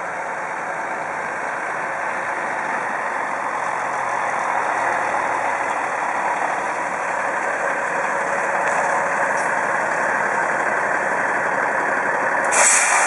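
A diesel semi truck pulling a Super-B grain trailer drives up and stops, its engine running and gradually growing louder as it comes closer. Near the end, a short sharp hiss of the truck's air brakes.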